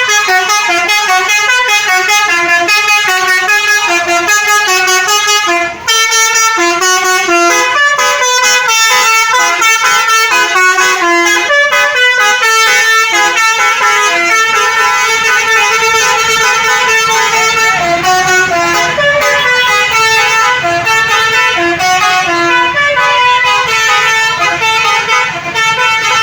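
Basuri musical bus horn (telolet horn) playing a long, loud tune of stepped notes, with a short break about six seconds in. A low rumble runs underneath in the second half.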